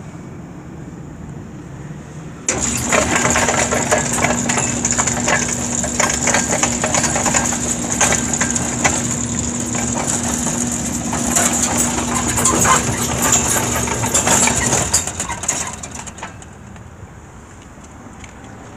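Linear slide gate opener running: a steady motor hum with a high whine under dense rattling and clattering as the gate travels. It starts abruptly about two and a half seconds in and dies away at around fifteen to sixteen seconds.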